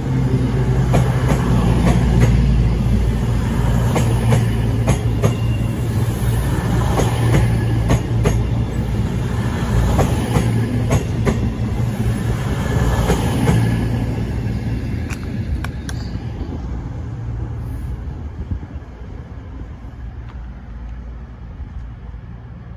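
CrossCountry Voyager diesel multiple unit going past close by: the low drone of its underfloor diesel engines and a run of sharp wheel clicks over the rail joints. After about fifteen seconds the clicks stop and the sound fades as the train draws away.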